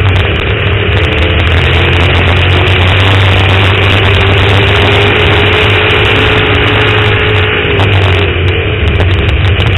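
Dirt-track stock car's engine running hard at racing speed, heard loud from on board the car as a steady drone with a held whine that fades about eight seconds in.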